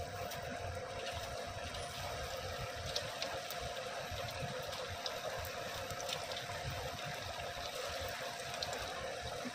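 Pakora batter deep-frying in hot oil in a kadhai: a steady sizzle with scattered small pops and crackles.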